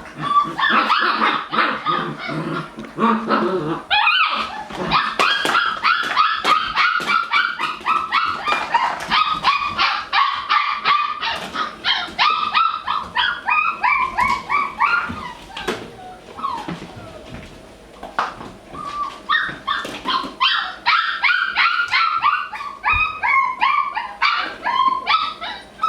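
Labradoodle puppies yipping, barking and whining in a rapid string of short high-pitched calls, easing off briefly about two-thirds of the way through before picking up again.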